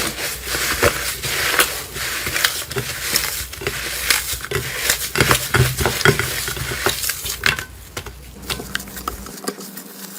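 Slime being squeezed and kneaded by hand: a busy run of irregular wet clicks and small pops, easing off about eight seconds in.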